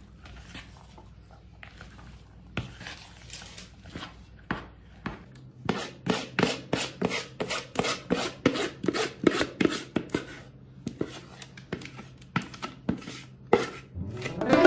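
Spoon stirring and scraping thick chocolate cake batter with raisins and nuts in a plastic bowl, then scraping it out of the bowl into a paper-lined tin. The strokes are sparse at first and become louder and quicker, about two or three a second, from about six seconds in.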